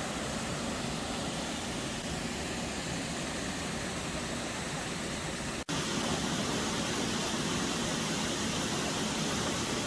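Waterfall rushing, a steady roar of falling water, broken by a sudden cut about six seconds in, after which it resumes slightly louder.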